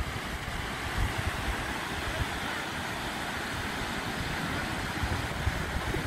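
Surf breaking and washing up a beach, a steady rush of waves, with wind buffeting the microphone.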